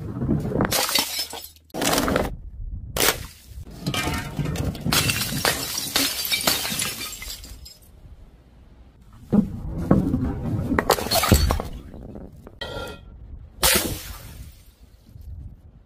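Glass jars smashing one after another, some hit by a heavy ball rolling down a wooden ramp and some filled with coloured powder. Each is a sudden crash with shards scattering and tinkling, about seven crashes in all, one of them ringing briefly near the end.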